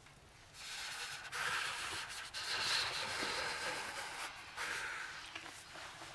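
A man breathing heavily through an open mouth, several long, hissing breaths in and out, starting about half a second in. The breathing is the laboured breathing of a sick, feverish man.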